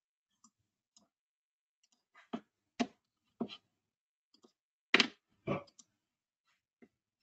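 Computer mouse clicking about half a dozen times at irregular intervals, with near silence between the clicks; the loudest click comes about five seconds in.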